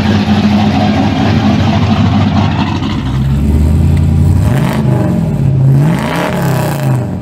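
Car engine running steadily, then from about three seconds in revving, its pitch rising and falling several times.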